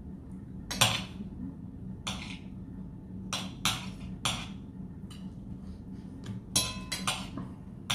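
Metal fork and knife clinking and scraping on a ceramic plate while eating: several short sharp clinks, the loudest about a second in, over a faint steady low hum.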